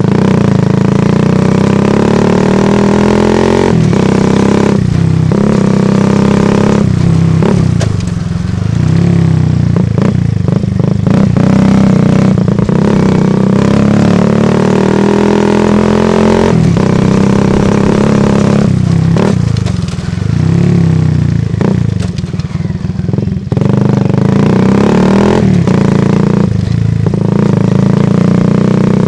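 Exhaust of a Shineray Phoenix 50cc motorcycle with its stock, unmodified muffler, heard close to the tailpipe. The engine runs steadily, its note rising and falling as the throttle is opened and eased off, with a few brief dips in level.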